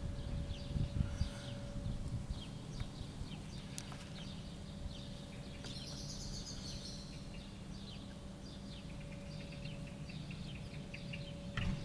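Small birds chirping repeatedly in short, quick notes over a constant low rumble of street background noise, with a faint steady hum underneath.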